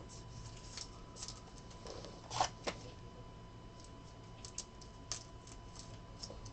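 Quiet scattered clicks, taps and rustles of trading cards being handled, with two sharper taps about two and a half seconds in.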